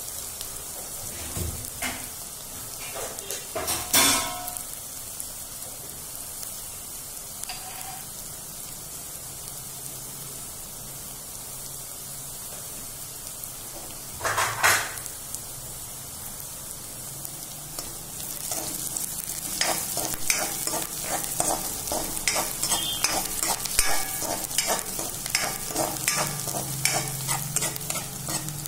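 Chopped onions, green chillies and curry leaves sizzling steadily in hot oil in a kadhai, with two brief louder sounds, one a few seconds in and one about halfway. From about two-thirds of the way in, a metal spatula stirs and scrapes quickly against the pan over the sizzle.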